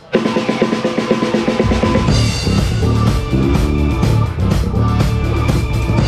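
Live band starting a song, with the drum kit loud and close. The bass and kick drum come in fully about a second and a half in, and the band then plays on steadily.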